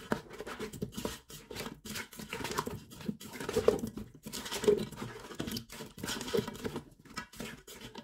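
A spatula stirring lamb trotters in a little spiced water in an electric pressure cooker's inner pot: irregular wet scraping against the pot, with the bones knocking together and a few louder knocks in the middle.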